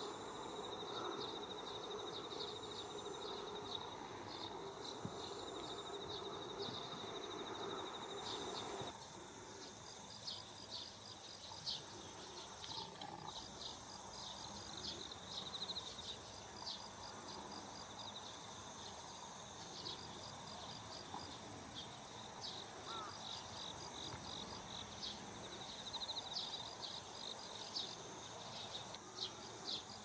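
Insects chirping: a steady high-pitched trill with trains of short, evenly repeated high pulses, over a low outdoor background hum that drops away about nine seconds in.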